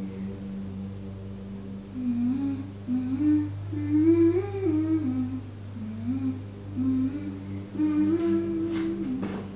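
A woman humming a slow, wordless tune in stepwise notes, starting about two seconds in, over a steady low hum.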